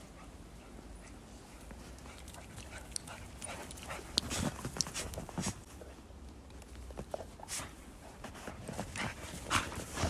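Dogs moving and playing in deep snow: irregular crunching and scuffling of steps in the snow, with a dog snuffling as it pushes its nose into the snow. The crunching comes in thicker clusters about four seconds in and near the end.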